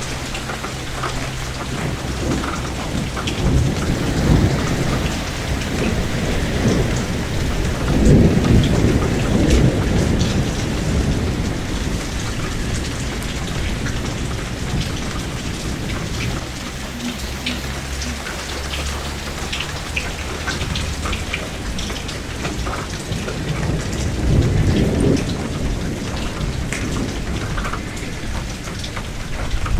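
Rain falling steadily, with thunder rolling in low rumbles several times, the loudest about eight seconds in.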